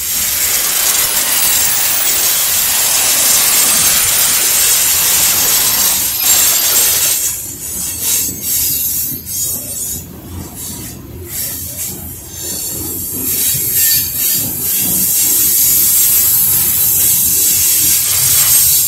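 Coal train hopper cars rolling slowly past, their wheels giving a loud scraping hiss against the rails. The hiss eases about seven seconds in, leaving uneven rumbling and knocks, and returns loud a few seconds before the end.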